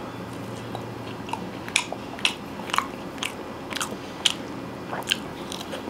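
A person chewing a bite of crispy fried popcorn chicken: a run of sharp crunches, about two a second, as the breaded coating breaks.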